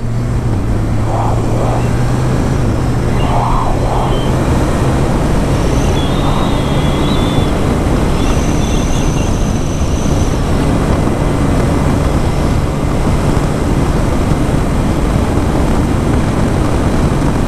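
Kawasaki ZX1000 (Ninja 1000) inline-four motorcycle cruising at road speed, its engine running at a steady note under heavy wind rush on the microphone. The engine note is clearest at first and sinks under the wind after a few seconds.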